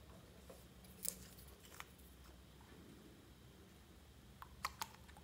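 A few faint, sharp clicks and taps from handling a small glass nail polish bottle and its screw cap with brush: one about a second in and a quick cluster of two or three near the end, over a low steady hum.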